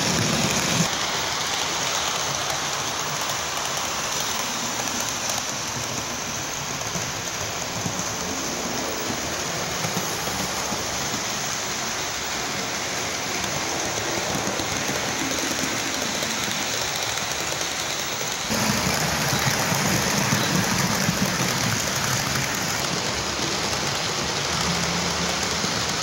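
HO-scale model trains running on a layout: a steady rushing noise of wheels rolling over the track, which turns louder about 18 seconds in.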